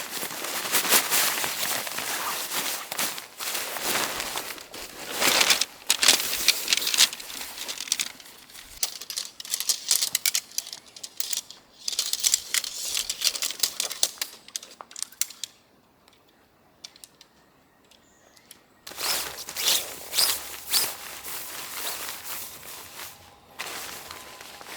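Irregular crackling and rustling with many sharp clicks and knocks, like gear or material being handled close up. It stops for about three seconds in the second half, then starts again.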